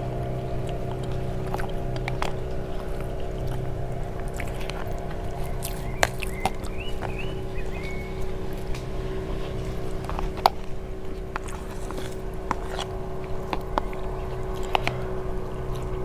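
A steady motor drone, several held tones that do not change, under sharp clicks of spoons against plastic plates and a few short bird chirps.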